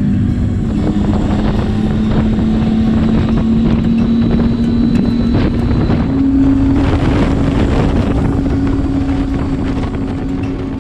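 Triumph Tiger 800's three-cylinder engine running under way, heard from the bike itself with wind rushing over the microphone. The engine note steps up in pitch about six seconds in.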